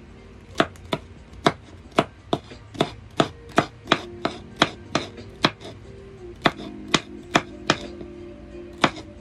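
A knife chopping celery on a cutting board: a run of sharp, short knocks, two to three a second, broken by two short pauses.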